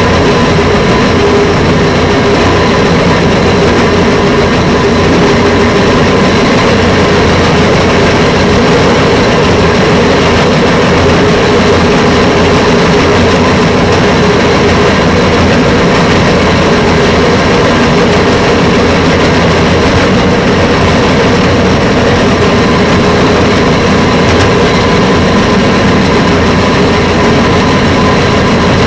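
Rail vehicle travelling along the track: a loud, steady engine drone mixed with running noise, unchanging throughout.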